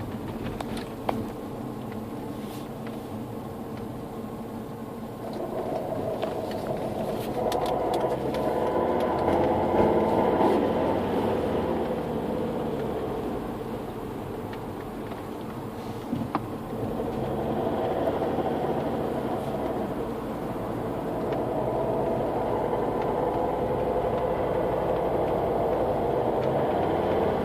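Volvo V50 D5's five-cylinder turbodiesel engine running, heard from the engine bay, with an unexplained strange noise from the engine bay. The noise swells and fades, loudest about ten seconds in and building again over the second half.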